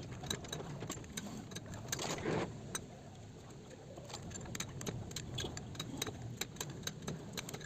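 Scattered light metallic clicks and scrapes of a large screwdriver prying at the stuck outer ring of a broken sprocket-hub bearing, whose balls and cage have already fallen out, in a motorcycle's rear sprocket carrier.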